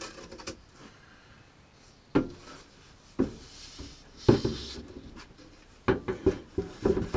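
Wood and tools being handled on a workbench: three separate sharp knocks about a second apart, the loudest about four seconds in with a short scrape after it, then a quick run of clicks and knocks near the end. The saw is not running.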